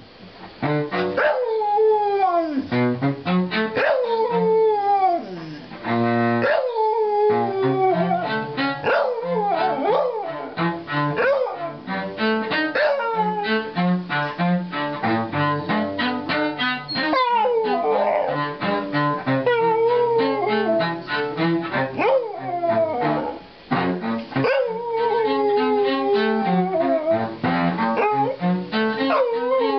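A dog howling along with a cello: repeated long howls that slide down in pitch, sounding over the cello's held low notes.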